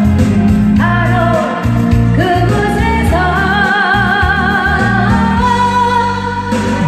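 A singer performing a trot-style song live over a backing track, holding long notes with a wavering vibrato.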